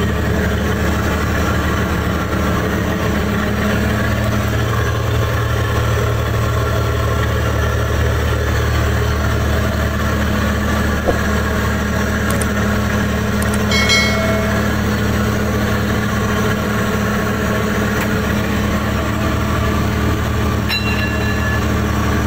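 A fishing boat's engine running with a steady low drone, with a couple of brief high tones over it about two-thirds of the way through and near the end.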